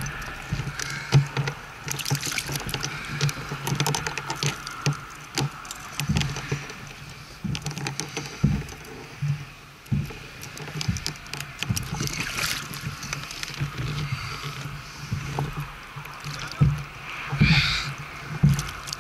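Water splashing and sloshing beside a kayak as a hooked barracuda is held at the surface in a lip grip, with many small knocks and clicks against the kayak's hull. Louder splashes come about twelve and seventeen seconds in.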